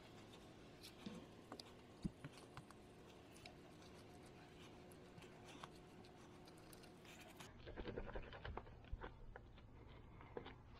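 Near silence with faint, scattered scratchy rubbing and light ticks from a microfiber cloth wiping a glossy alloy wheel, buffing off a ceramic spray coating.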